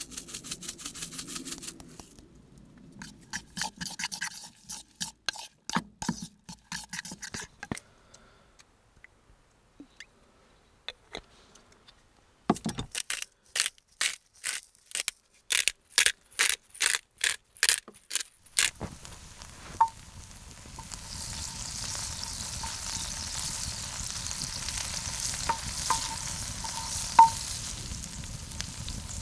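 A run of sharp, evenly spaced knocks, about three a second, from kitchen work on a cutting surface. About two-thirds of the way in, food starts sizzling in a hot pan, the sizzle building steadily with a few pops.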